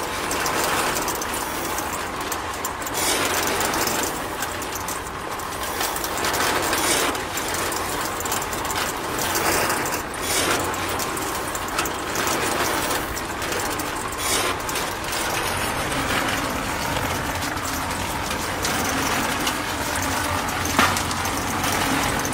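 Small motor-driven model concrete mixer running, its tin drum turning with a steady mechanical rattle as the sand and cement mix tumbles inside.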